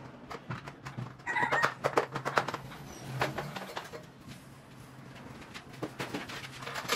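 Knocks and footsteps as a man climbs down an aluminium stepladder and walks across a hard floor. A short animal call comes about a second in, over a low steady hum.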